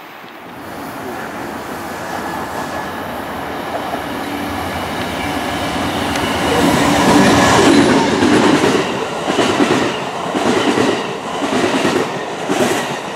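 An Amtrak passenger train led by a GE Genesis diesel locomotive passing close by. The sound grows steadily louder to a peak about seven seconds in as the locomotive goes past, then the double-deck Superliner cars follow, their wheels clacking over rail joints about twice a second.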